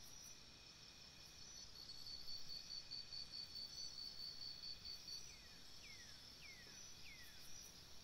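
Faint nature soundscape of insects trilling steadily in high tones, one of them pulsing rapidly. About five seconds in, a bird gives four short falling whistles, roughly two a second.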